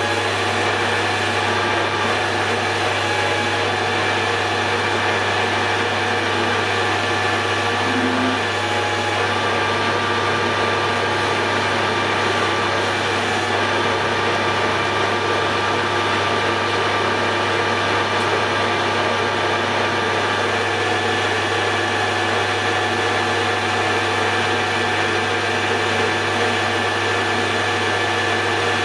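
Hare and Forbes AL335 metal lathe running steadily under power, its motor and gear train humming with several steady tones, while a radius-tipped tool turns the edge of the workpiece.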